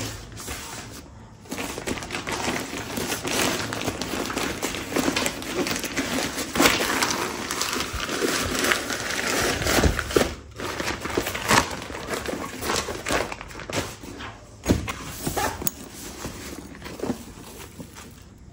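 Rustling and crinkling from a backpack and its packaging being handled, with scattered clicks and knocks.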